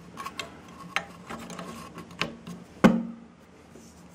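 A few light clicks and knocks from handling a glass vacuum tube over the metal chassis of an old valve radio receiver, the sharpest about three seconds in, over a faint steady hum.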